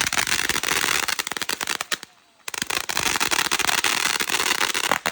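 A roll of firecrackers going off, a fast, dense string of sharp pops and cracks, broken by a brief silence about two seconds in before the popping resumes.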